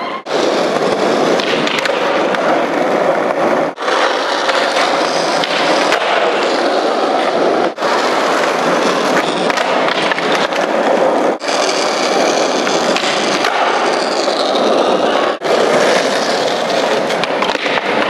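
Skateboard wheels rolling on a concrete floor as skaters push off and attempt flip tricks. The sound breaks off abruptly about every four seconds and starts again.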